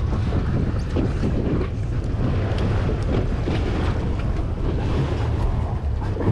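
Steady wind buffeting the microphone, a deep rumble, over water washing along the hull of an offshore boat.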